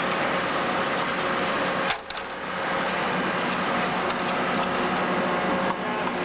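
Trailer-mounted vacuum excavator running: a steady rushing noise with a steady whine through it, which drops out briefly about two seconds in and comes back.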